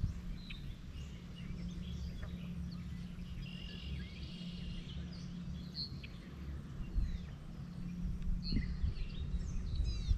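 Songbirds chirping and calling on and off over a low steady rumble.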